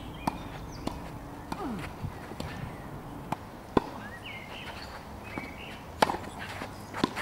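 Tennis racket strings hitting a tennis ball in a rally: short sharp pops at uneven intervals, about seven in all, the loudest about four seconds in and again about six seconds in.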